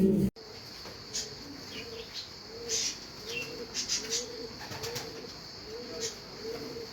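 Pigeon cooing: a steady series of short, rounded coos about one every three-quarters of a second, with brief sharp high chirps scattered over it. It starts abruptly just after the beginning.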